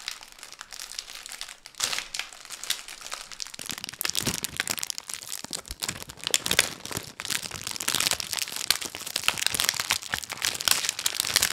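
Plastic wrapper of a sleeve of sandwich cookies crinkling as it is handled and pulled open with both hands, a dense crackle that grows louder about four seconds in.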